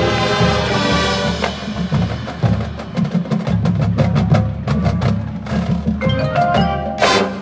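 High school marching band playing: held chords give way after a second or so to a run of sharp percussion hits, and the full band comes back in near the end.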